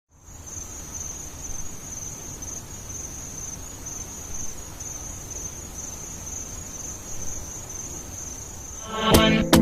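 Crickets chirping in a steady, high, finely pulsing trill over a low rumble. Music with a strong beat cuts in near the end.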